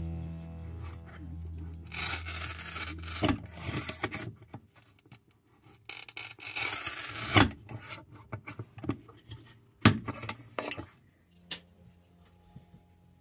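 Manual push tile cutter's scoring wheel rasping across a wall tile in several strokes, with a loud sharp crack about ten seconds in as the tile is snapped along the score.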